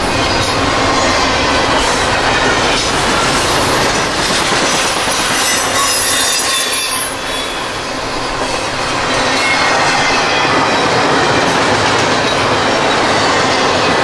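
Freight train rolling past: steady wheel-on-rail noise with clickety-clack over the rail joints and a faint high wheel squeal. The sound eases off slightly about seven seconds in, then picks back up.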